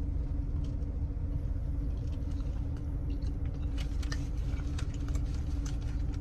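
Steady low rumble with a constant hum, like an idling vehicle heard from inside, with scattered small clicks that cluster about four to five seconds in.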